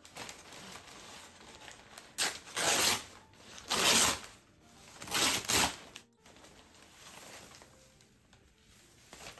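Plant packaging being unwrapped and torn open by hand: three loud bursts of rustling and tearing in the middle, with quieter handling noise between.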